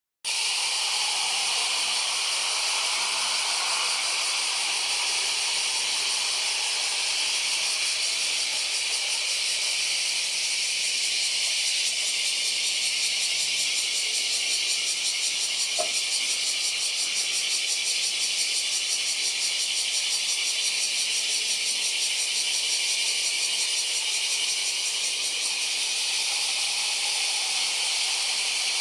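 A dense, steady chorus of summer cicadas: a shrill high hiss with a fast pulsing throb.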